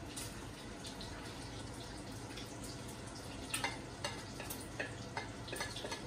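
Ham and garlic frying in a skillet with a low, steady sizzle. In the second half come several light clicks and taps as chopped onion is scraped off a plate with a spatula into the pan.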